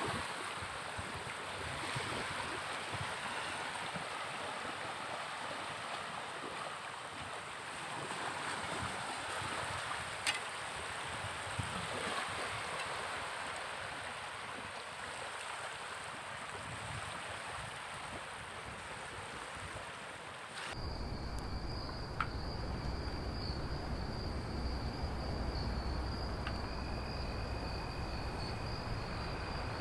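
Sea waves washing on the shore with wind on the microphone. About two-thirds of the way through it cuts abruptly to crickets or other insects chirring in a steady high drone over a low rumble.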